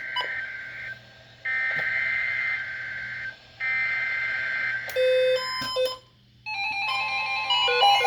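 Emergency Alert System SAME header: three buzzing bursts of warbling digital data tones, each about two seconds long with short gaps between them. These are followed by a few beeps and then, from about six and a half seconds, the start of a loud steady alert tone of several pitches that begins to pulse.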